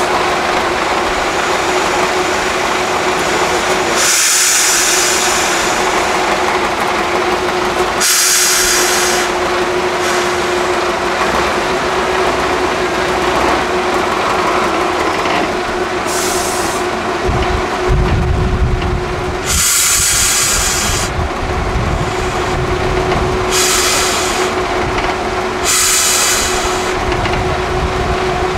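Off-road trial truck's diesel engine working under load as the truck crawls through a muddy ditch, with a steady droning tone throughout. Six short sharp hisses come through the run, and a deeper engine rumble swells in just past halfway.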